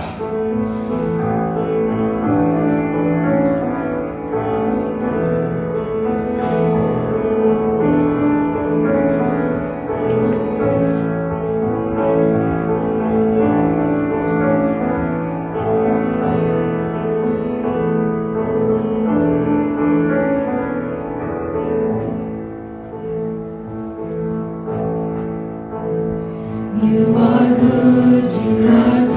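Instrumental introduction to a worship song: slow, sustained chords held for several seconds each, growing louder near the end.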